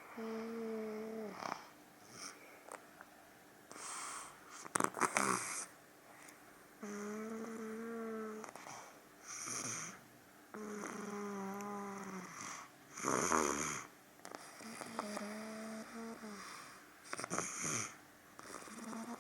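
A two-year-old toddler snoring loudly in his sleep, a breath every few seconds. Some snores carry a steady hum-like pitch; others are rough and breathy.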